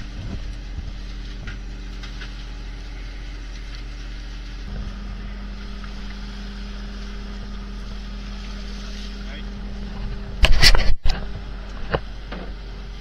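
Fishing boat's engine running steadily, its hum shifting slightly about five seconds in. A loud clatter lasting about half a second comes near the end, then a smaller knock.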